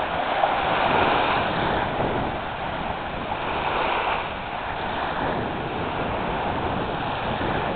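Small waves breaking and washing over a shallow sandbar in a steady hiss of surf, swelling about a second in and again around four seconds.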